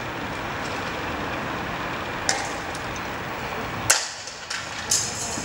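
A series of sharp bangs over a steady street background noise, the loudest about four seconds in.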